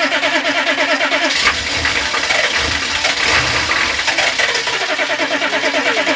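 Starter cranking a cold turbo diesel engine that will not start, the owner suspects a frozen fuel line. The even cranking rhythm breaks about a second in into a rougher, lower rumble for a few seconds, then steady cranking resumes near the end.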